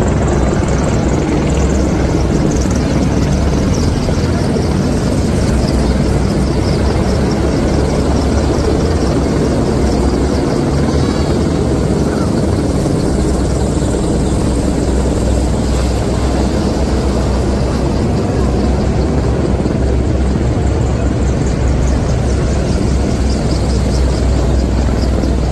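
AH-64 Apache attack helicopter flying low overhead, loud and steady, with the rapid rhythmic beat of its rotor blades.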